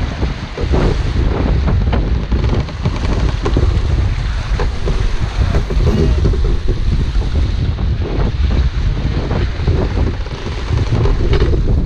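Heavy wind buffeting the microphone over water rushing and splashing along the hull of a J/109 sailboat heeled and sailing upwind, with gusts rising and falling.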